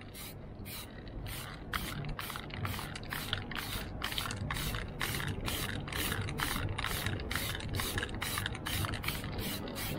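Aerosol spray paint can sprayed in quick short bursts, about two or three hisses a second, coating flat MDF panels.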